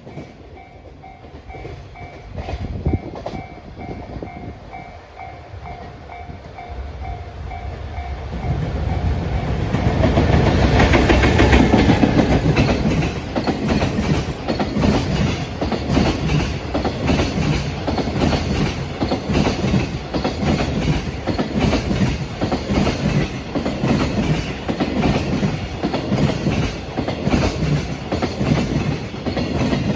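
A level-crossing warning bell rings in a steady pulsing pattern while an EF66 100-series electric locomotive approaches. About ten seconds in the train's noise swells to its loudest as the locomotive passes, then a long string of container flat wagons follows, wheels clattering rhythmically over the rail joints.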